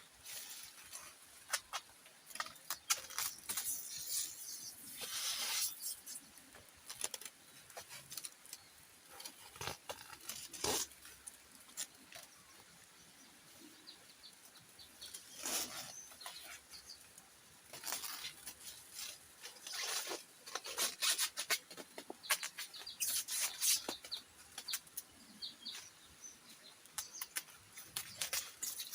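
Irregular rustling and scraping in short bursts, with scattered sharp clicks, like hands working with plant material.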